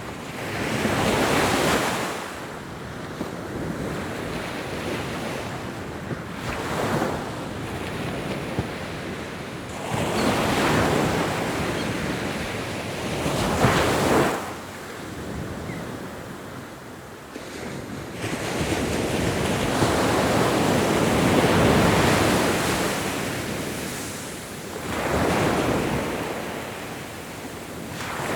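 Ocean waves breaking and washing on the shore, surging and fading every few seconds, with one longer swell building and falling away in the latter part.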